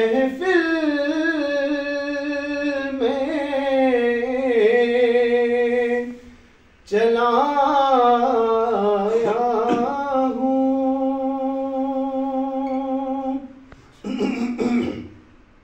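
A man singing a naat unaccompanied, in two long drawn-out phrases with wavering, ornamented pitch; the second phrase ends on a long held note. A brief vocal sound comes near the end.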